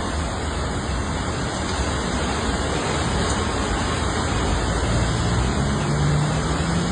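Heavy storm downpour of rain and hail: a steady, dense hiss with a low rumble, and a faint low hum coming in about five seconds in.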